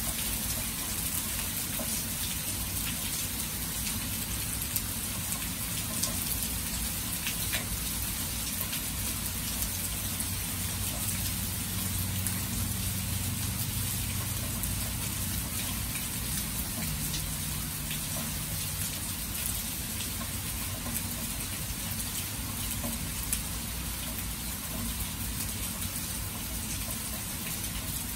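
Steady rain falling on open water and grass: an even, constant hiss with scattered ticks of individual drops, over a low rumble.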